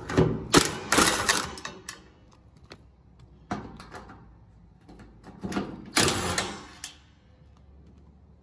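Ryobi cordless drill running in reverse in three short bursts, spinning wing nuts off the bolts that hold corrugated steel shutters.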